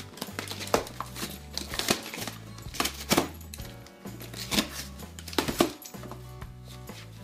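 Wrapping paper and a cardboard box being ripped and crinkled by a dachshund's teeth and paws: a string of irregular sharp tears and rustles, over background music with held low notes.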